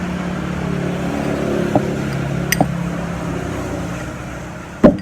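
A steady low engine-like hum that fades away after about four seconds, with a few light clicks, then one loud sharp knock near the end.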